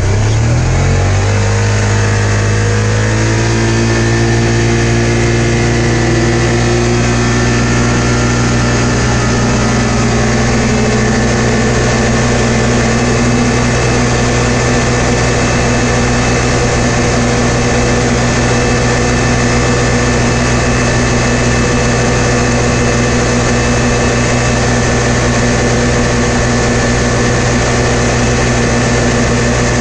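Polaris RZR 570's single-cylinder engine and belt-drive clutch accelerating in high range, pitch rising over the first few seconds, then holding a steady high pitch at about 7,250 rpm. The machine is running flat out at around 51 mph, its top speed on this Dalton clutch tune.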